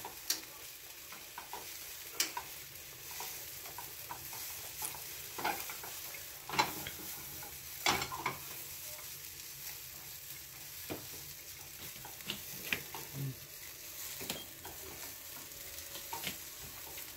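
Carrots stir-frying in oil in a pan for kinpira, sizzling steadily, with irregular clicks and scrapes of the utensil stirring against the pan and a few louder knocks around the middle.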